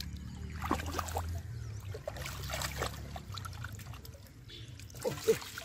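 Shallow pond water splashing and trickling in irregular bursts as bare hands grope through the mud and grass and scoop up a fish.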